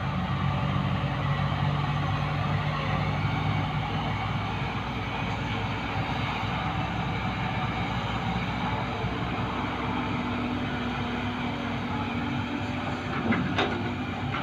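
Heavy diesel engine of a dump truck or excavator running steadily, with a low hum that fades about four seconds in and a slightly higher steady tone coming in later.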